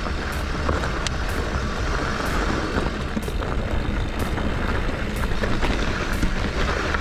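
Steady rushing noise of a mountain bike rolling along a dirt singletrack, with wind rumbling on the microphone.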